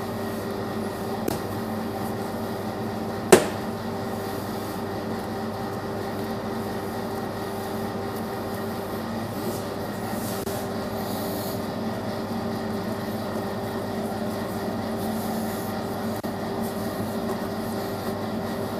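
A steady machine hum holding several constant pitches, with one sharp knock about three seconds in and a lighter click a little after one second.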